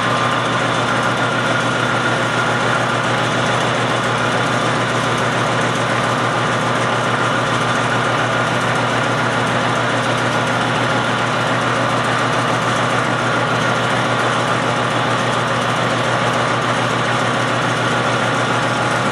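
Metal lathe running steadily, with a parting tool fed slowly into the spinning threaded bolt to cut it off; an even machine hum with a few constant tones.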